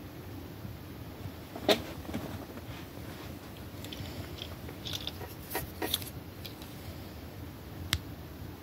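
Steady low room noise with a few small, sharp clicks and taps: the loudest about two seconds in, a short cluster around the middle, and one more near the end.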